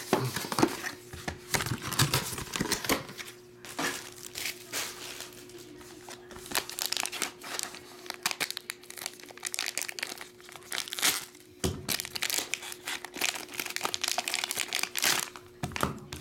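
Gold foil trading-card pack wrappers crinkling and tearing as they are handled and opened by hand, in irregular bursts with brief pauses.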